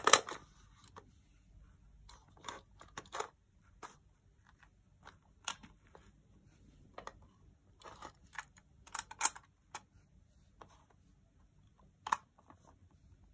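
Plastic clicks and clatters of a cassette tape being handled and loaded into a portable cassette player, its cassette door opening and snapping shut. The clicks come singly, every second or two, with a louder double click past the middle.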